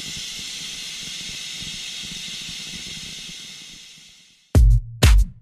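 Air hissing steadily out of a Ford Ranger's rear tyre valve as the tyre is let down for driving on sand; the hiss fades away near the end. About four and a half seconds in, a music track starts with two heavy kick-drum beats.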